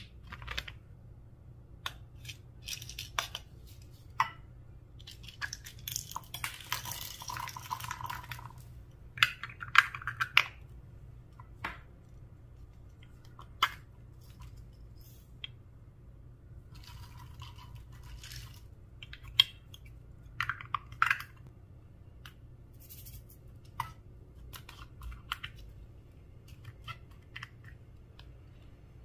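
Slime being pressed, stretched and mixed by hand: irregular sticky clicks, pops and short squelching crackles, some louder bursts among them, over a low steady hum.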